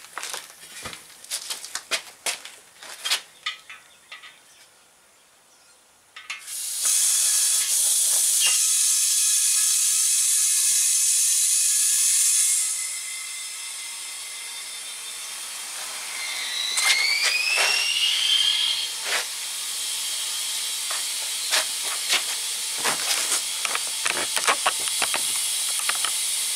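Metal clinks and knocks from a tire iron, then compressed air hissing loudly through an air hose into a truck tire with its valve core out. The hiss drops to a quieter level partway through and goes on under more knocks and two short rising squeals.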